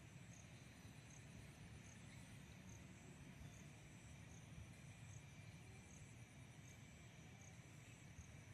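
Near silence: faint insects chirring, with a soft high chirp repeating about once a second.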